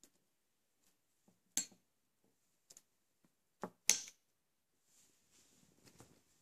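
Light handling noise: a few sharp clicks and taps, the loudest a double click just before the four-second mark, then a soft rustle near the end.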